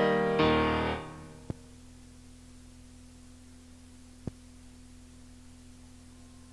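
A children's song's backing music ends on a final chord in the first second. The silent gap between tracks on the cassette follows: a steady low hum with two faint clicks.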